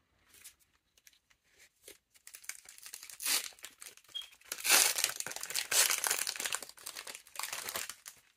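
Foil booster pack wrapper crinkling and tearing as it is ripped open by hand, starting about two seconds in and loudest in the middle.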